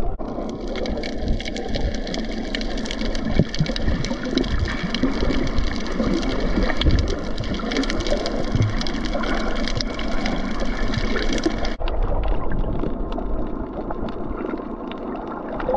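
Muffled underwater water noise picked up by a submerged camera, crackling and gurgling, with a faint steady high whine that stops abruptly about twelve seconds in.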